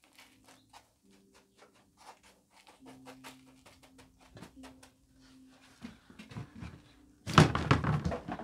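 Hands pressing and patting coarse, gritty bonsai substrate into a shallow pot: a scatter of small crunches and clicks from the granules. About seven seconds in, a much louder thump and rustling clatter lasting about a second.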